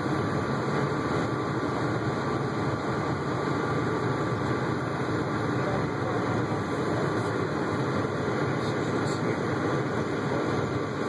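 Steady running noise of an Alaska Railroad passenger train on the move, heard from inside the coach.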